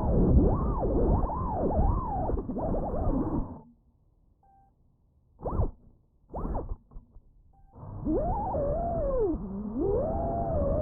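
Impulse RC Apex FPV quadcopter's brushless motors and propellers whining, the pitch sliding up and down with the throttle. About four seconds in the throttle is cut and the whine drops away, with two short throttle punches, before it comes back near the end. The sound is muffled, with no high end.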